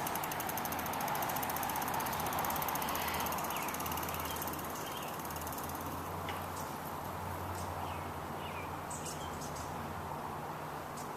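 Bicycle freewheel ticking as the bike rolls away, slowly fading under steady outdoor background noise, with a few faint chirps and clicks later on.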